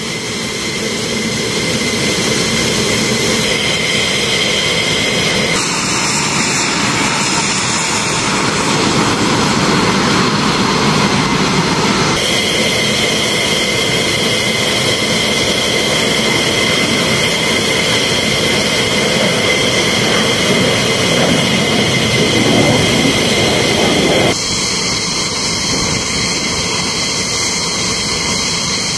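F-15E Strike Eagle jet engines running on the flight line: a loud, steady rush with high whining tones. The sound shifts abruptly three times.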